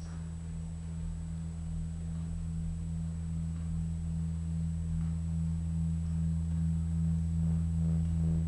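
Low steady electronic drone of two held tones, slowly swelling louder, with a faint pulsing higher layer coming in near the end.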